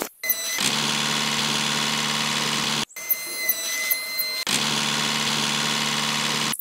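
Small electric motor of a toy model tractor running with a steady hum. It cuts out and restarts twice, and a higher steady whine joins it about three seconds in for a second or so.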